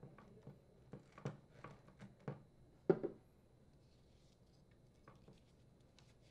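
Faint clicks and ticks of a hand screwdriver turning a screw into a plastic auger motor housing, with a louder knock a little under three seconds in.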